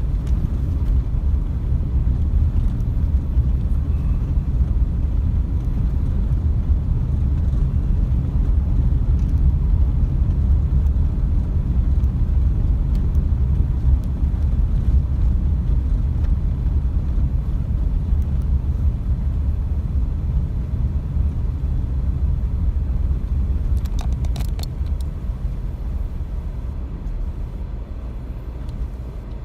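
A loud, steady low rumble with no clear pitch, with a few faint clicks about 24 seconds in; it fades somewhat near the end.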